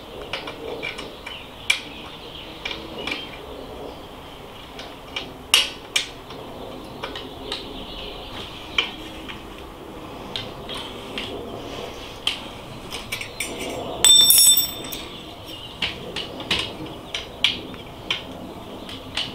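Hand tools and small metal parts clicking and clinking while fittings are undone on an e-bike disc brake caliper, with a louder ringing metal clatter about 14 seconds in.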